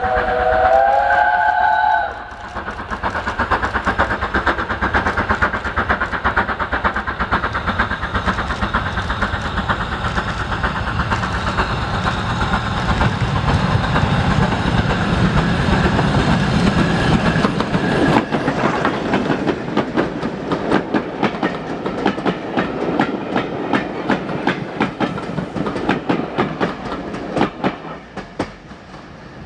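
A BR Standard Class 5MT 4-6-0 steam locomotive sounds its whistle for about two seconds, then passes close by at the head of a train of coaches, working hard, with its exhaust and the wheels clattering over the rail joints. The sound drops away sharply near the end.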